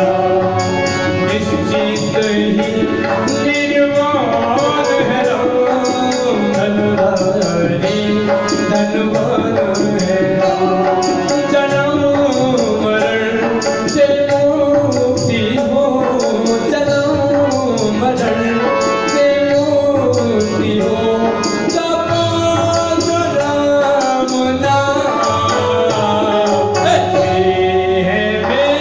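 A man singing a Hindi devotional bhajan, with tabla keeping a steady rhythm behind the voice.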